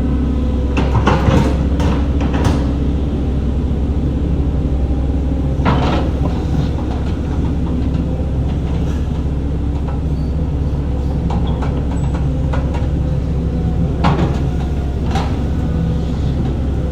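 Heavy earthmoving machine's diesel engine running steadily under load, with a few sharp metallic clanks about a second in, again near six seconds and twice near the end.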